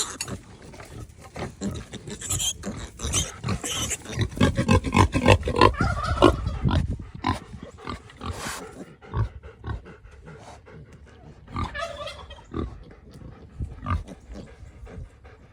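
Berkshire–Mangalitsa cross pigs grunting repeatedly, an irregular run of short grunts that grows busiest and loudest in the middle, then thins out to scattered grunts.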